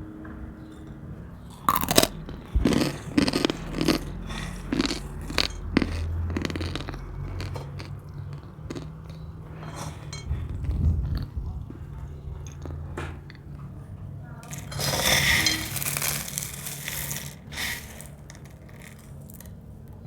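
Crisp dried cornstarch film being bitten and crunched, then chewed: a run of sharp cracks about two seconds in, quieter chewing, and a dense burst of crunching about three quarters of the way through.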